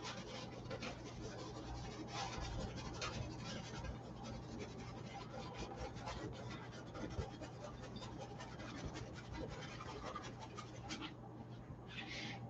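Brush bristles scratching and dabbing oil paint onto a canvas in a quick run of short strokes that stop shortly before the end, with one brief rasp near the end, over a steady low hum.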